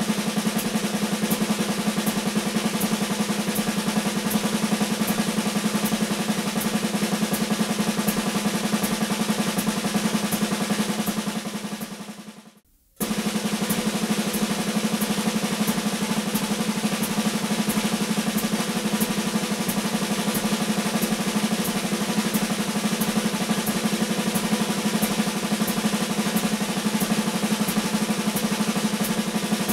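Snare drum played with sticks in a continuous, even stream of single and double strokes (RLRL-RRLL-RLRL-RLLRRLLR sticking), with a metronome ticking along. It fades out about twelve seconds in, there is about a second of near silence, and then it starts again at a slightly faster tempo, 90 bpm instead of 80.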